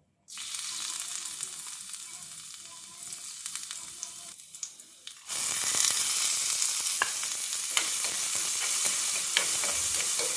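Chopped garlic hits hot oil in a karai and sizzles at once; about five seconds in, chopped onion goes in and the sizzle jumps louder. In the second half a spatula clicks and scrapes against the pan as the garlic and onion are stirred.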